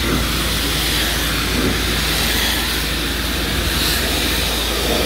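Pressure washer jet hissing steadily as it rinses loose dirt off wet sandstone paving slabs, over a constant low drone from the machine.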